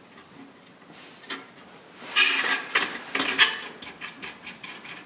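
Circuit boards handled and slotted together: a scrape and rustle about two seconds in, then a run of small, light clicks.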